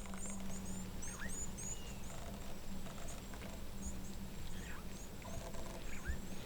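Small birds calling in the bush: short, high chirps in quick runs, with an occasional rising whistle, over a steady low hum.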